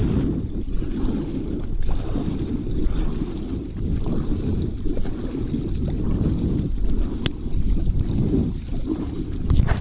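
Low, uneven noise of wind and water on an action camera's microphone aboard a kayak, with a sharp click about seven seconds in.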